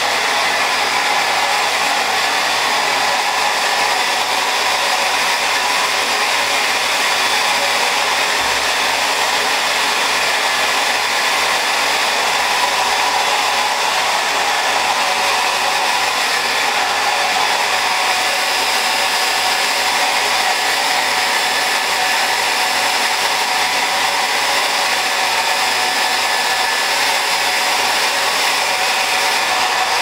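Handheld electric hair dryer running steadily, an even rushing blow of air with a faint motor whine, used to dry a poodle's coat.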